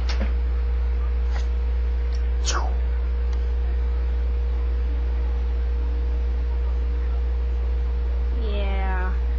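Steady low electrical hum with a faint higher tone under it, a couple of faint clicks early and a quick falling squeak about two and a half seconds in. Near the end a kitten gives one short meow.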